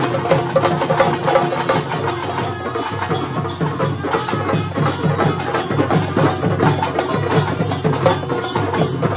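Several chende drums, rope-laced barrel drums struck with curved sticks, played together in a fast, dense, unbroken rhythm.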